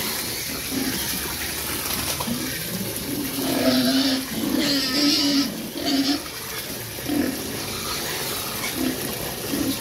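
Pigs grunting and squealing, with the loudest squeals between about three and six seconds in. Underneath, water runs steadily from a hose into a bucket of feed pellets.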